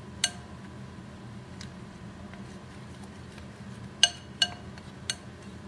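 A metal spoon clinking against a bowl while stirring flour batter: a single clink just after the start, then three sharp ringing clinks close together about four seconds in.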